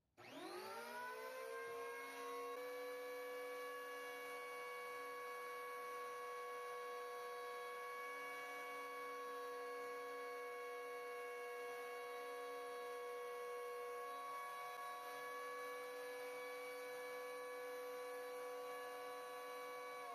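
Makita electric hand planer, mounted upside down as a jointer, switched on: its motor winds up to speed over about two seconds, then runs with a steady whine.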